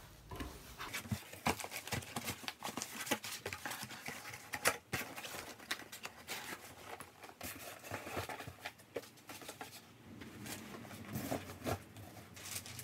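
Irregular light clicks, taps and rustles of handling, as a lightweight clutch flywheel and its packaging are moved about.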